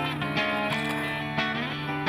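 Background music led by guitar, notes and chords struck every fraction of a second.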